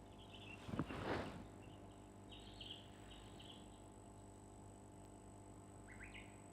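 Faint birds chirping in the background in short scattered bursts, over a low steady hum, with a brief knock and rustle about a second in.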